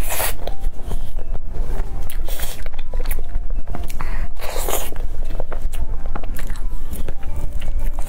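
Close-miked eating of a chestnut cream cake: wet chewing and mouth sounds as forkfuls of whipped cream and sponge are taken, with several louder bites and small clicks in between.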